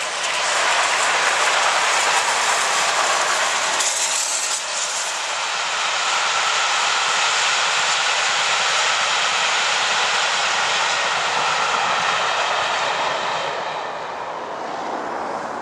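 A passenger train passing at speed: a steady rush and rumble of the locomotive and coaches on the track, fading a little near the end as the last coaches go by.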